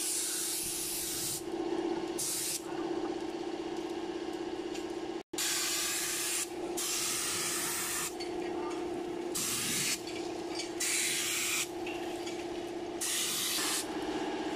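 Compressed-air spray gun spraying enamel paint, hissing in on-off bursts as the trigger is squeezed and released, over a steady machine hum.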